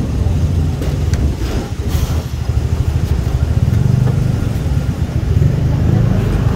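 Hong Kong double-decker electric tram running along its rails, heard from the upper deck: a steady low hum of the tram's motor and wheels, with a few brief clicks about one and two seconds in, and road traffic alongside.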